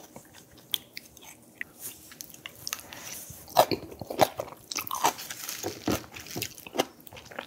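A person chewing and biting food close to the microphone: irregular sharp mouth clicks and bites, busier in the second half.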